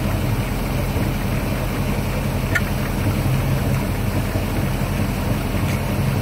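Carbureted inboard boat engine idling steadily, kept running so it can be fogged for winter storage. A single light click about two and a half seconds in.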